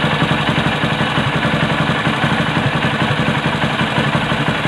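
Hero Splendor's single-cylinder four-stroke engine idling steadily with an even pulse, just after its timing-chain tensioner has been adjusted. The mechanic holds that this adjustment stops the tapping timing-chain clatter.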